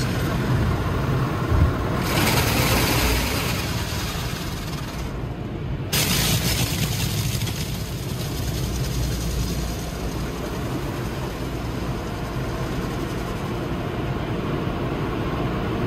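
Car engine running with a steady low rumble under a rushing hiss. The hiss comes in about two seconds in, drops away briefly, then comes back suddenly about six seconds in.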